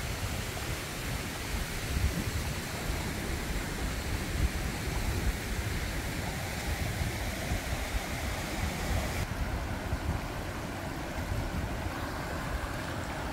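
Shallow river water running steadily over flat rock slabs, with an uneven low rumble of wind on the microphone underneath.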